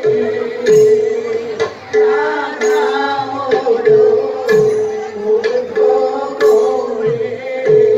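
Live traditional dance music: a hand drum plays deep strokes that slide down in pitch, about one a second, with sharp metallic clicks over a held melodic note.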